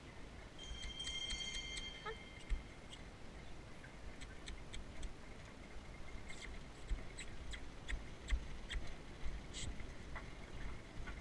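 A horse-drawn driving cart and its harness rattling and clicking as it rolls behind a small horse on arena dirt, over a low rumble. A high, steady whine sounds briefly about a second in.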